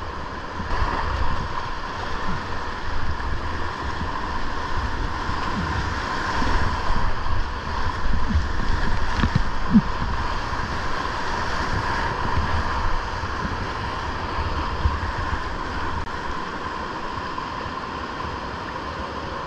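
Whitewater rapids rushing steadily, with wind buffeting the microphone.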